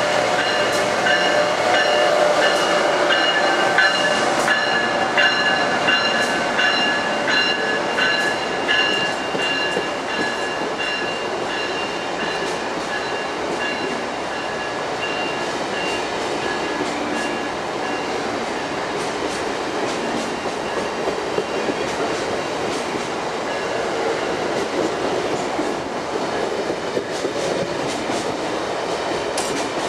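Amtrak AEM-7 electric locomotive and its stainless-steel passenger cars passing on the adjacent track. A steady rolling rumble with high steady tones over the first ten seconds or so, and wheels clicking over rail joints as the cars go by.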